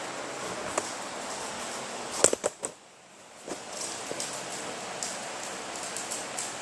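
Paint spray gun hissing steadily as it lays on epoxy primer. A little over two seconds in come a few sharp clicks, and the hiss stops for about half a second before starting again as spraying resumes.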